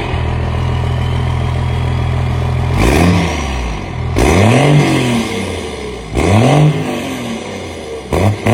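12-valve Cummins 5.9 L inline-six diesel idling steadily for about three seconds, then revved in four short blips. Each blip rises in pitch and falls back to idle.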